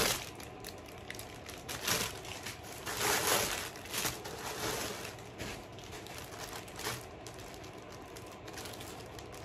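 Clear plastic packaging bag crinkling as it is handled and opened, in irregular bursts, the loudest about three seconds in.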